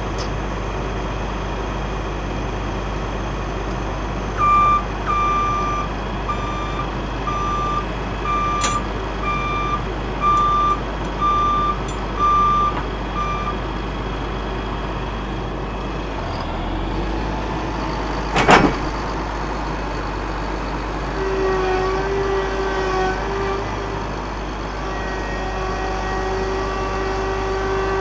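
A heavy vehicle's reversing alarm beeps about once a second for some nine seconds over its steady engine rumble. About halfway through there is a single short, sharp burst of hiss. Near the end a steadier humming tone joins the engine.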